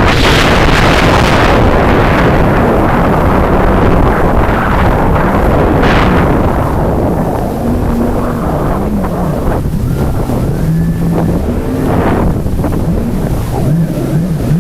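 Jet ski engine running under way with heavy wind noise on the microphone. Its pitch wavers up and down in the second half as the throttle changes.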